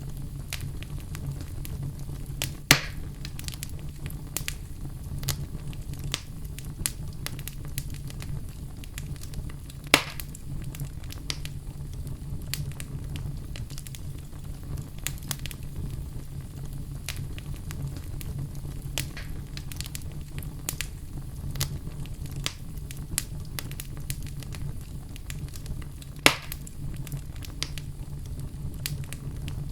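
Wood fire crackling steadily over a low rumble, with many small irregular snaps and three louder pops, about three, ten and twenty-six seconds in.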